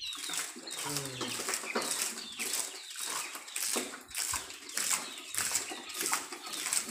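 Liquid flung by hand from a bucket, splattering onto a heap of cow dung in quick, irregular splashes about two a second.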